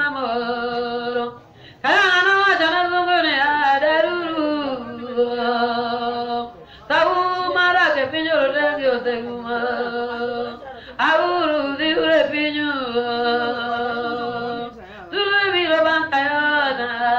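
A voice singing a prayer song in four long phrases, often holding notes steady, with short breaths between phrases.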